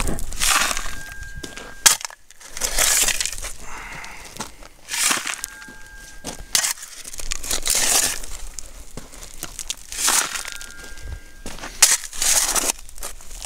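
Steel shovel digging and scraping into rocky, gravelly ground, with loose stones rattling, in separate strokes about every two to three seconds.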